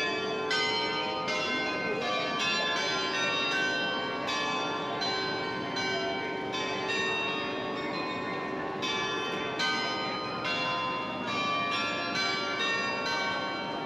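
The Swiss Glockenspiel's set of tuned bells playing a tune, one struck note after another at different pitches, each ringing on under the next.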